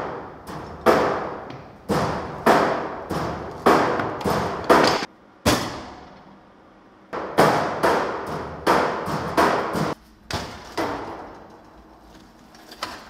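Blacksmith's hand hammer striking hot steel on an anvil, forging a rounding hammer head. The blows come about two a second, each with a short metallic ring, in two runs with a pause of about a second and a half between them.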